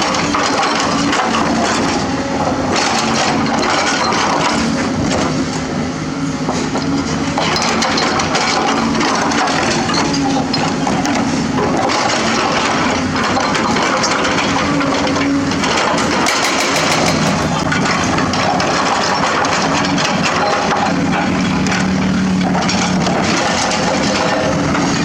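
Excavator digging up asphalt: the bucket cracks and crunches broken pavement in irregular knocks over a diesel engine working under load, its pitch rising and falling as the hydraulics work.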